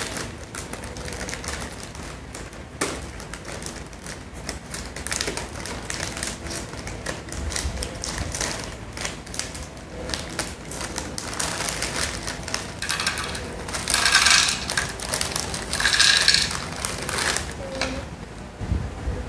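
Plastic snack bag crinkling and rustling as it is cut open with scissors and handled, then popcorn pouring and rattling onto a plastic plate, with two louder bursts of rustling near the end.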